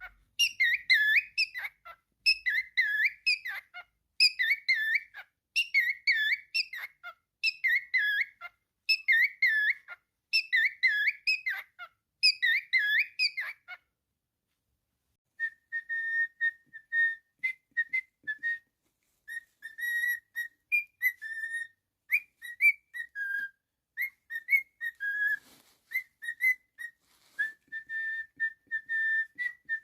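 Cockatiel whistling: a warbling phrase repeated about eight times, then after a short pause a run of short whistled notes, mostly on one pitch, in a tune-like sequence.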